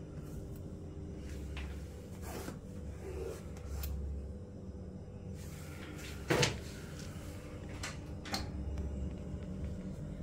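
Plastic clicks and knocks from a front-loading washing machine's detergent drawer being handled and pulled about, one sharper knock about six seconds in, over a steady low hum.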